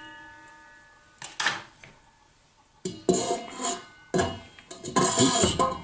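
A stainless steel mixing bowl rings after being knocked by the spatula, the tone fading over a second or so. From about three seconds in there is a run of clattering knocks as a glass bowl of flour is handled against the steel bowl and the flour is tipped in.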